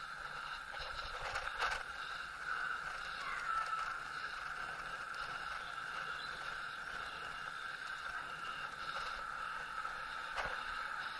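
Steady rolling noise of a bicycle ride along a paved lane, with a couple of brief knocks, one about a second and a half in and one near the end.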